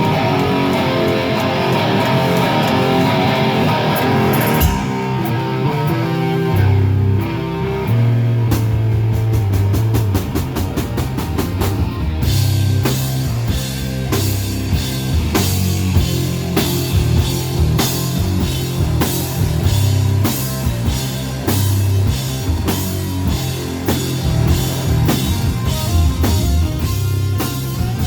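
Heavy rock music: distorted guitar riffing over bass, with drums and steady cymbal strokes coming in about twelve seconds in.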